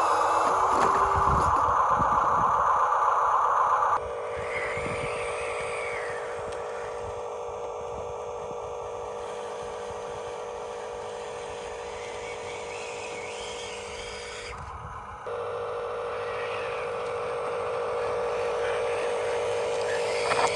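Steady whine of the small electric motors of radio-controlled construction models, dropping in level and pitch about four seconds in and louder again near the end, with a few low knocks in the first two seconds.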